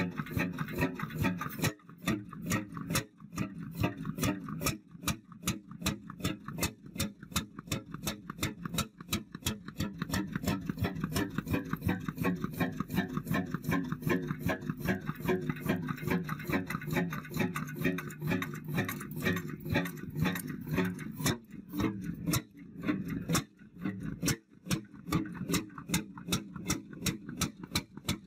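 Vintage stationary engine with large flywheels running, giving a steady mechanical ticking of about four or five clicks a second.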